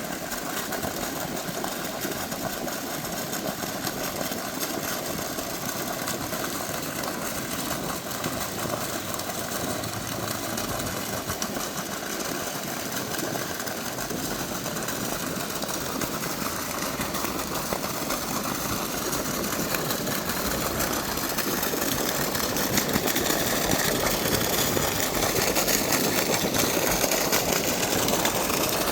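Water running and splashing steadily into a pileta (water basin), growing a little louder after about twenty seconds.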